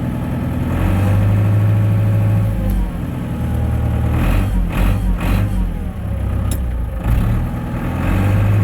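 Case 885XL tractor's four-cylinder diesel engine being revved up and down: the pitch rises about a second in, holds, drops, and climbs again near the end. A few short knocks sound about halfway through.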